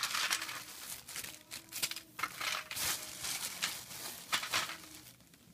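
A clear plastic bag being rummaged through by hand, crinkling and rustling in irregular bursts.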